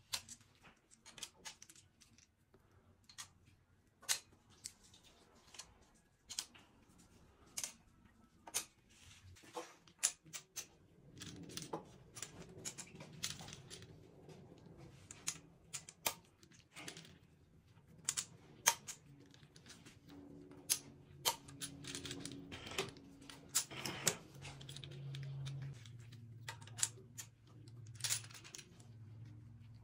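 Light metallic clicks and clinks at irregular intervals as steel rocker arms (roller finger followers) are set onto the valve stems and hydraulic lash adjusters of a Range Rover 4.4 V8 diesel's aluminium cylinder head. A faint low hum comes in about a third of the way through.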